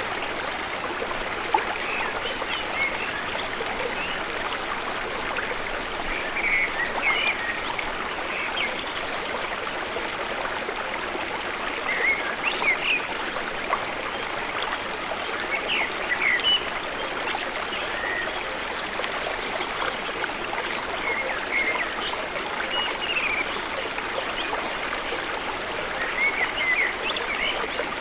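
A stream flowing steadily, with short bird chirps scattered over it every few seconds.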